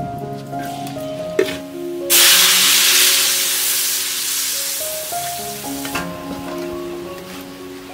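Loud sizzling in a hot wok as minced garlic and sauce hit the oil. It starts suddenly about two seconds in, dies down gradually and cuts off about six seconds in, after a single click from the spatula on the wok. Background music plays throughout.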